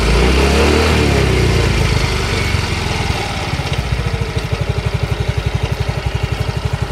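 Yamaha Fino 125 scooter's single-cylinder engine and CVT running, rising and falling briefly near the start, then idling with an even pulsing beat. This is the noisy CVT the owner is chasing.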